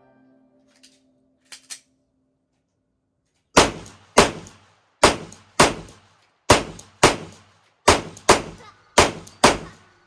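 Stoeger STR-9C compact 9mm pistol fired ten times with steel-case ammunition, the shots mostly in quick pairs about half a second apart, each with a short ringing tail. A few light clicks come before the first shot.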